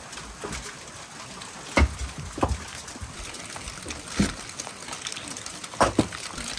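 Bricks and concrete blocks being lifted off a tandoor oven's lid and set down, four dull knocks a second or two apart, over a steady hiss of rain.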